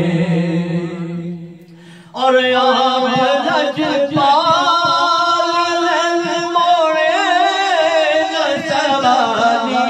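A man singing an Urdu naat into a microphone, holding long wavering notes. His phrase fades away about a second in, and a new phrase begins about two seconds in.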